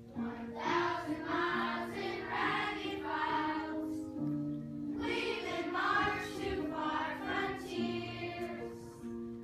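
Children singing a song together over a steady instrumental accompaniment, in two sung phrases with a short break about four seconds in.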